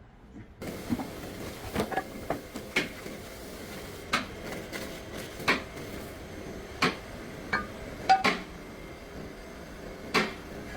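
Metal tools and parts clinking and knocking at irregular intervals, about a dozen sharp strikes, over a steady background hiss.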